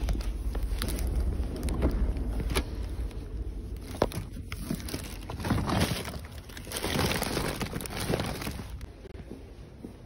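A woven plastic shopping bag rustling and crinkling as it rubs against the phone's microphone, with a few sharp knocks and a low rumble of handling noise in the first seconds.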